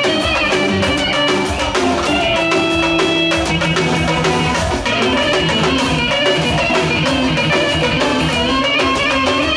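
Lively dance music from a keyboard synthesizer: a melody over a steady drum beat.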